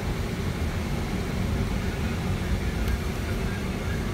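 Steady low rumble and road noise of an airport apron bus driving across the tarmac, heard from inside the cabin.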